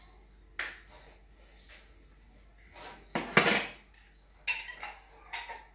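Metal kitchen utensils clinking and knocking against dishes in a few separate strikes, the loudest a ringing clatter about three seconds in.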